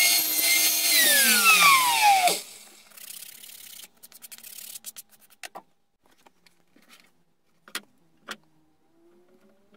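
Electric chop saw (mitre saw) running at full speed, then its motor and blade spinning down with a falling whine once the trigger is released about a second in, stopping a little over a second later. A few light knocks follow.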